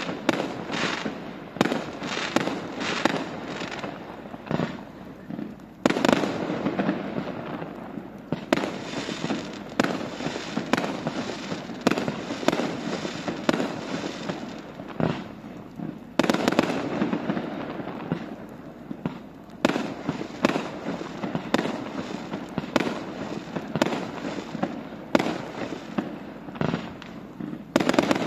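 Fireworks display: aerial shells bursting in a string of sharp bangs, about one or two a second. Twice, about six seconds in and again near the middle, a sudden louder burst is followed by a few seconds of dense, sustained sound.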